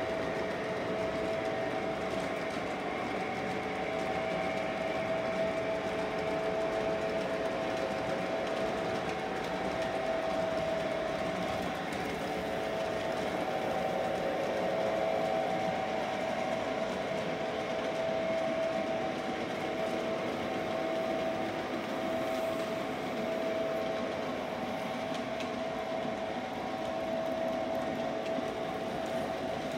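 O-gauge model diesel train running on layout track, a steady rolling rumble of wheels on rails under a motor whine that wavers and drops in and out.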